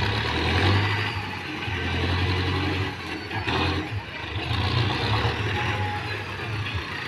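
Mahindra Arjun Novo tractor's diesel engine running loudly while it works a front loader, its revs rising and falling several times as the bucket is raised and emptied and the tractor backs away.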